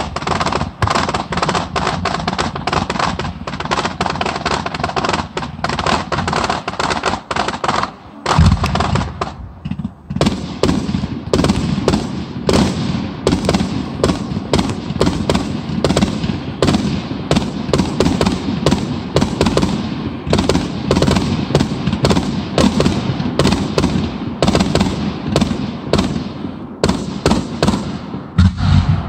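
Fireworks display: a rapid, continuous string of bangs and crackles from bursting shells, with a louder deep boom about eight seconds in.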